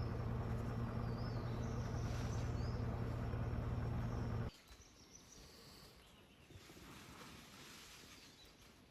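Vehicle engine idling steadily, switched off abruptly about four and a half seconds in. Birds chirp over a quiet natural background.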